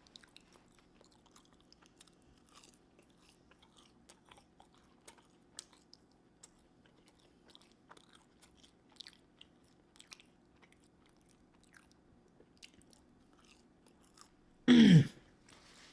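A person chewing a fried chicken sandwich with the mouth close to the microphone: soft, scattered wet chewing clicks and smacks. Near the end comes a single loud 'mmm' of enjoyment that falls in pitch.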